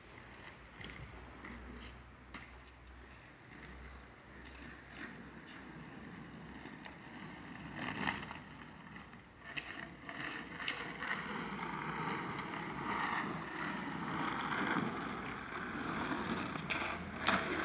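Skateboard wheels rolling over asphalt, a rough rumble that grows steadily louder as the rider comes closer, with a few sharp knocks of the board.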